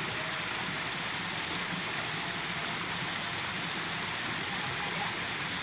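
Steady, even rushing hiss of water.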